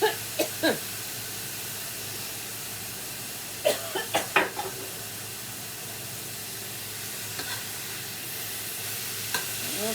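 Ground beef and jalapeños sizzling steadily in a frying pan. There are two quick bursts of clatter, utensil and food knocking in the pan: one at the start and one about four seconds in.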